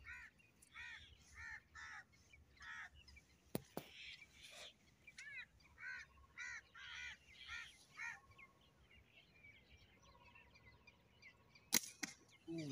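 A crow cawing over and over, a series of harsh caws through the first eight seconds or so. Two sharp clicks come near the end.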